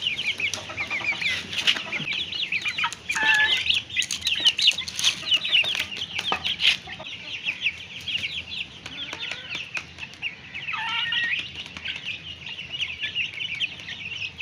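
Young poultry peeping constantly in rapid, high-pitched cheeps, with hens clucking now and then, about three seconds in and again near eleven seconds, and a few sharp knocks in the first half.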